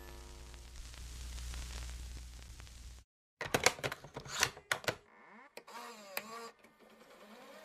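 Intro sound effects for a glitchy logo animation: about three seconds of low static hum, a sudden cut to silence, then a quick run of sharp clicks, followed by a few warbling pitch glides.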